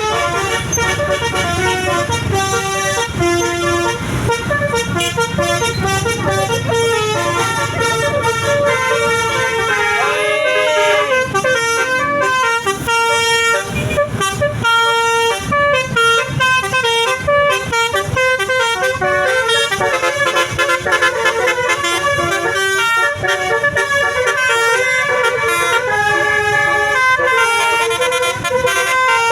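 Bus telolet basuri horn, a multi-tone musical horn, playing a tune of quickly changing notes. A low rumble runs under it for the first ten seconds or so.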